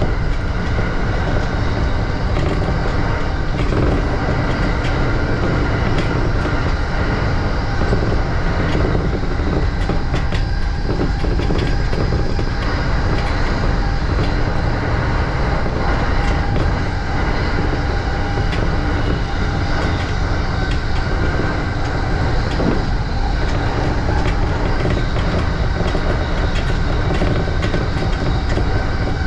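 JR E235-series electric train running at speed, heard from inside the passenger car: a steady rumble of wheels on rail with scattered clicks over rail joints.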